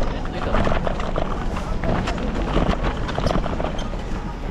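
Busy pedestrian street ambience: indistinct voices of passers-by and scattered footsteps over a steady low rumble.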